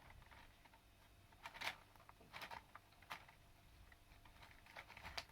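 Near silence, with a few faint rustles and taps of paper card being handled.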